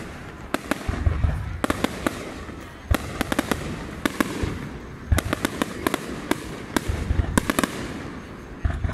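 Aerial fireworks display: shells bursting overhead in quick clusters of sharp bangs and crackles every second or so, some with a low rumbling boom.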